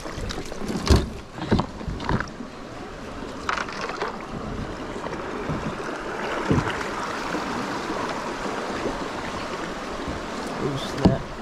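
Rushing river water around a kayak in fast current. Several hard knocks and bumps come in the first few seconds and a couple more near the end, over a steady rush of water through the middle.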